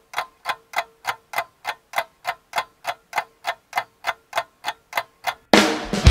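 Evenly spaced ticking clicks, about three and a half a second, over a faint steady tone. Electric-guitar rock music cuts in suddenly near the end.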